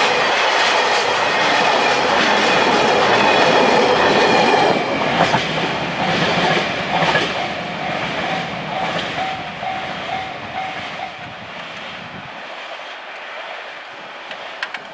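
Freight train of gasoline tank wagons rolling past, wheels clattering over the rail joints; loud for the first few seconds, then the clatter fades as the last wagons go by. A level-crossing warning bell rings in even pulses and stops about 11 seconds in.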